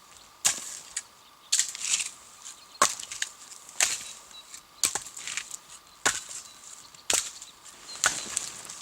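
Axe blows chopping wood, about eight sharp strikes roughly a second apart, some followed by a short splintering crackle.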